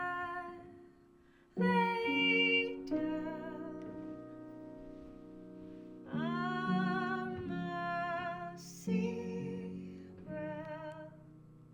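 Music of layered singing voices holding long chords with vibrato over sustained low notes. New phrases swell in several times, about 1.5, 6, 9 and 10 seconds in.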